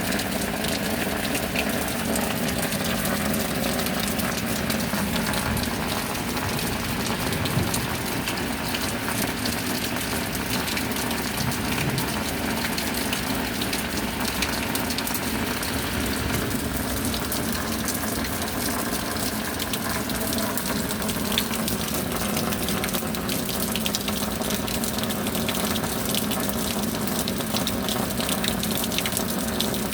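Steady rain falling: an even hiss made of many fine drop ticks, holding at the same level throughout.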